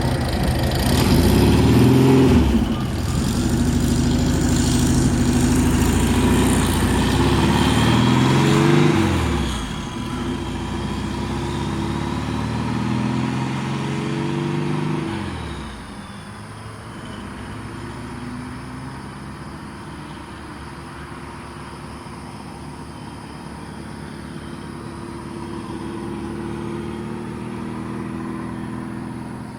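Turbocharged air-cooled VW Beetle's flat-four engine accelerating hard, its pitch climbing, dropping at a gearshift about 2 s in, and climbing again until it eases off near 9 s. It pulls up once more more quietly, with a faint turbo whistle rising and then falling away as it lets off about halfway through, then runs on lower and steady.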